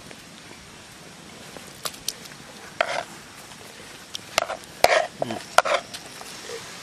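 A few scattered sharp clicks and short knocks from a hand handling cut raw liver in a steel bowl, over a faint steady hiss.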